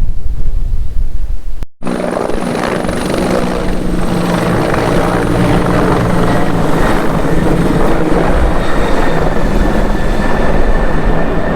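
Wind buffeting the microphone, then after a cut a helicopter's rotor and turbine running steadily, with a thin high whine above the rotor sound.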